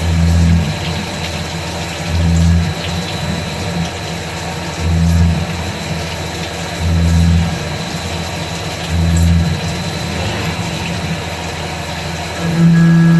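AutoMateCNC VMC425 vertical milling machine running a cut, with a steady high whine and a low hum that swells about every two seconds.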